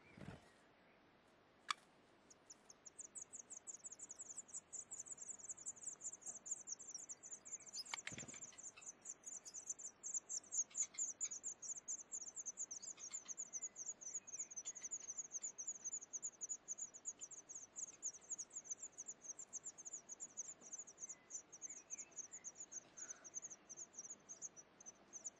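Nestlings begging for food: a fast, continuous stream of very high, thin chirps that starts about two and a half seconds in and keeps going. A few sharp knocks come near the start and one about 8 seconds in.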